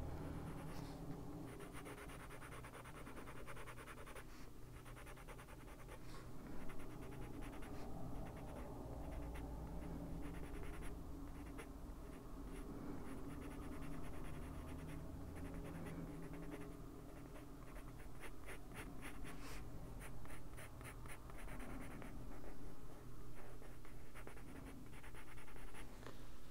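Faber-Castell Polychromos colored pencil scratching on a coloring-book page in many short, quick shading strokes, with a faster run of strokes about two-thirds of the way in.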